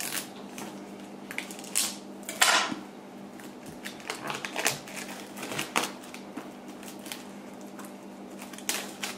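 Clear plastic shrink-wrap on a boxed software package being slit with a small knife and peeled off: irregular crinkling and crackling of the cellophane with small scrapes and clicks, and one louder rustle about two and a half seconds in.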